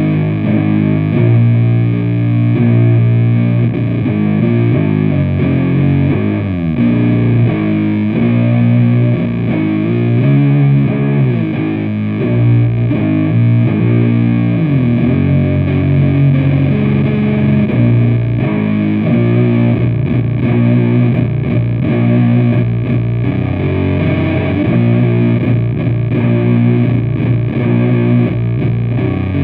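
Heavily distorted humbucker electric guitar through a PPPC Dream the Desert booster pedal into a Matamp GT120 valve head and 4x12 cabinet, playing a slow, low riff of held notes with a few slides between them: a thick stoner-doom tone.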